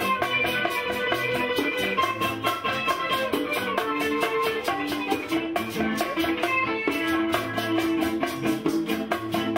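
Live band playing an instrumental passage: electric guitars picking a melody over a fast, steady percussion rhythm.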